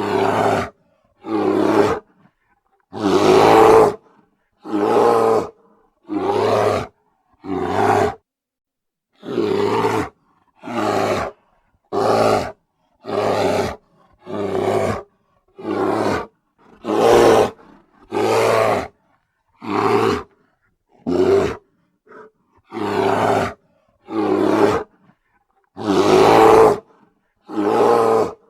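A bear roaring over and over: a string of short, harsh roars about one a second, each breaking off into silence, with a longer, louder roar about three seconds in.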